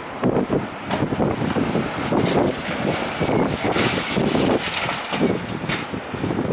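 Demolition of a brick and concrete building: heavy demolition machinery working while masonry and debris crash and clatter down in an irregular, continuous series, with wind buffeting the microphone.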